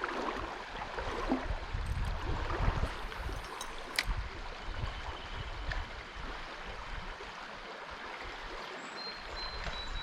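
Flowing stream water rushing over rapids as a steady hiss, with uneven low rumbling in the first half and a single sharp click about four seconds in.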